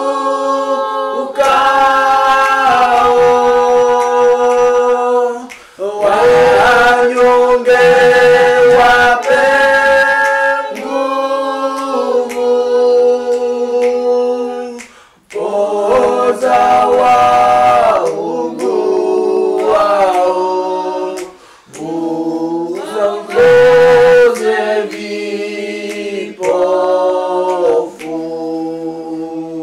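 A group of voices singing a hymn a cappella, in long held notes, with brief pauses between phrases about six, fifteen and twenty-one seconds in.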